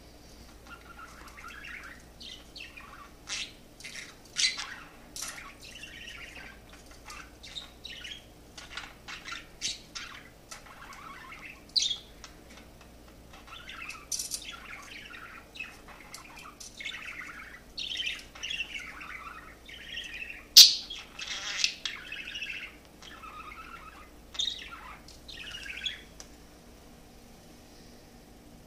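Budgerigar warbling excitedly at its reflection in a mirror: a long, unbroken run of quick chirps, clicks and short squawks. The loudest sound is a sharp click about two-thirds of the way through.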